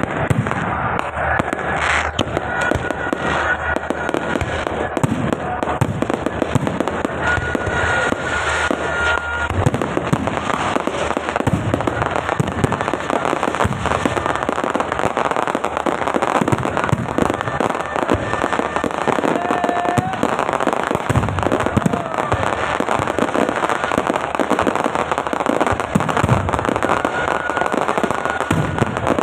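Fireworks and firecrackers going off in a dense, continuous crackle of rapid pops, with a few brief thin whistling tones now and then.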